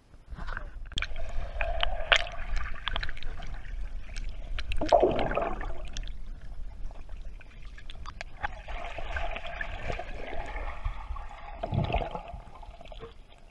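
Water gurgling and splashing close by, with scattered sharp clicks and knocks over a low rumble.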